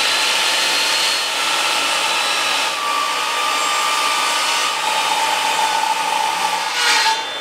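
Portable jobsite table saw running while a long board is ripped at a 30-degree bevel: a steady motor whine and blade noise, dipping a little under load as the wood is pushed through. It winds down near the end as the saw is switched off.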